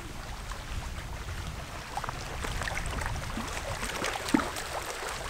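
Low wind rumble on the microphone with scattered light rustles and clicks from someone walking over grass and handling the camera. No coyote calls are heard.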